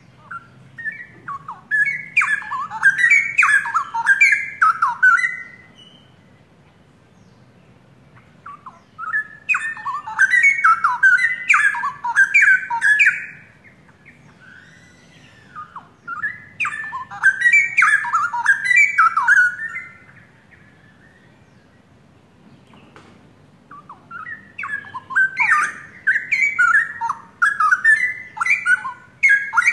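Straw-headed bulbul (cucak rowo) singing loudly in four bouts of rapid, pitch-sliding whistled phrases, each about four seconds long, with pauses of a few seconds between them.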